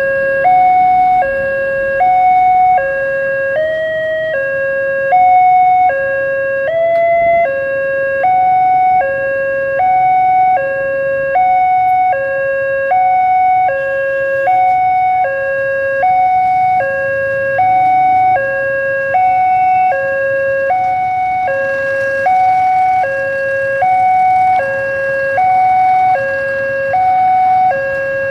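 Railway level-crossing warning alarm sounding on and on in an even two-tone, high-low pattern, about one cycle every second and a half, with no train coming: the crossing's alarm is faulty and stuck on.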